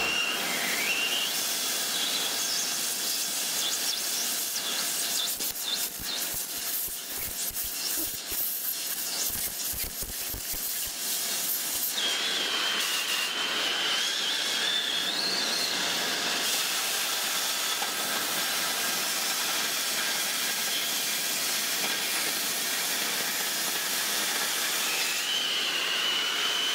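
Oxy-fuel cutting torch with a Harris cutting tip hissing steadily as its flame cuts steel plate. Dense crackling and spattering from about five to eleven seconds in. A thin whistle rides over the hiss at times, wavering upward in the middle.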